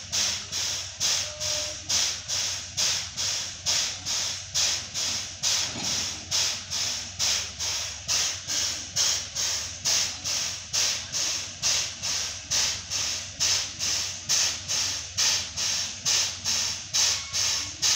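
JNR class C11 steam tank locomotive standing in steam and hissing in very regular pulses, about two a second, like the working strokes of its steam-driven air pump, over a faint low hum.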